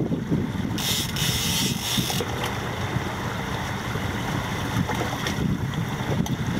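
Twin Yamaha 115 outboard motors running with wind buffeting the microphone and water churning behind the boat; about a second in, a hiss lasts for over a second.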